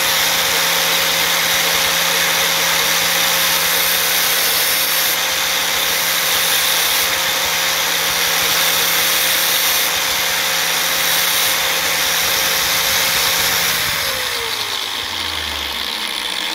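Bench-mounted 4-inch angle grinder running steadily while a piston ring end is ground on its thin disc to widen the ring gap. About 14 seconds in it is switched off and winds down with a falling whine.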